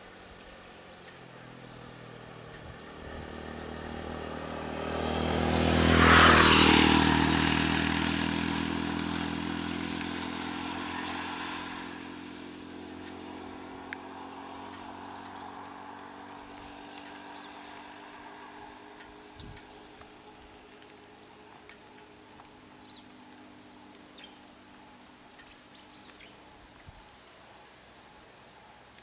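A road vehicle passes close by, swelling to a peak about six seconds in, its engine note dropping as it goes past, and fading away by about twelve seconds. Insects drone steadily at a high pitch throughout, and a single sharp knock sounds later on.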